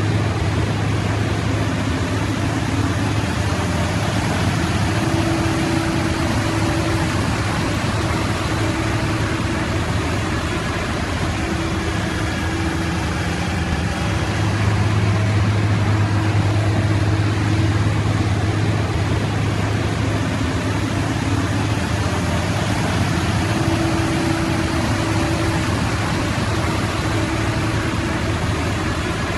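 Steady vehicle engine and tyre noise heard from inside a car's cabin while driving slowly on a gravel road, with a low hum and a fainter, higher engine tone that comes and goes.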